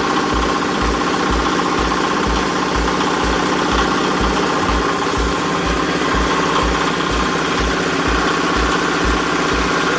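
Diesel engine running steadily as the drive for a hydraulic baling press's pump, with a low thump repeating about twice a second.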